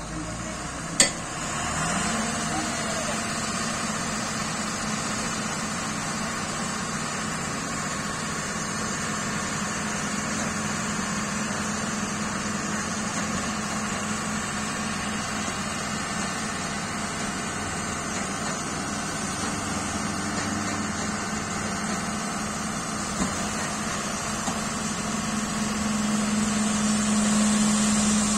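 Dump truck's diesel engine raised in revs about two seconds in to drive the hydraulic hoist as the tipper body lifts, then holding a steady drone. A sharp click about a second in; the drone grows louder near the end as the body reaches its steepest tilt and the soil begins to slide out.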